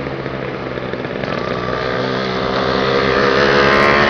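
Motorcycle engine accelerating, its note rising steadily in pitch and getting louder as it gathers speed.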